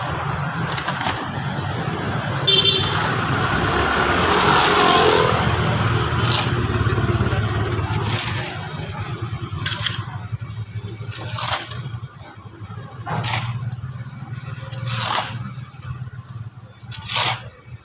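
Steady low engine hum, with short scraping strokes repeating about every two seconds through the second half.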